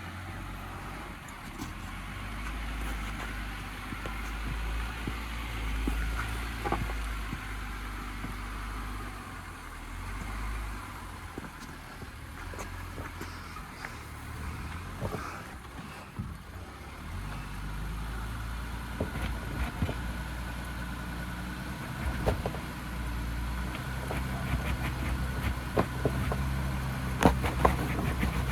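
Jeep Gladiator Rubicon engine running at low revs in four-wheel-drive low, climbing a rocky hill with the sway bar connected and the lockers off; the engine note swells and eases several times, with scattered clicks and knocks of rock under the tires.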